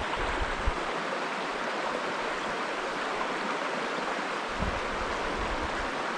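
Steady rush of a trout stream's flowing water, with a low rumble of wind on the microphone near the start and again about two-thirds of the way in.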